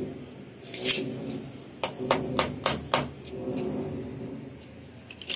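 Handling noise: a short scrape about a second in, then a quick run of five sharp clicks at roughly four a second, and a few softer clicks near the end.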